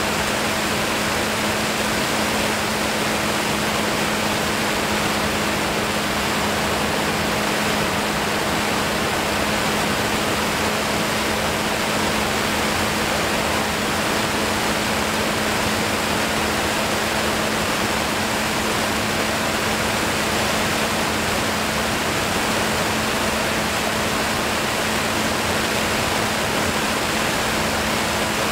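Steady rushing airflow noise in flight, an even hiss that does not change, with a faint steady hum underneath.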